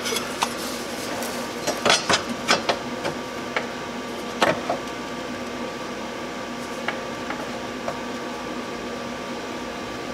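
Steel repair plate clinking and knocking against a Jeep YJ frame as it is worked into position by hand: a quick cluster of sharp metal knocks in the first five seconds, then a few light taps. A steady hum runs underneath.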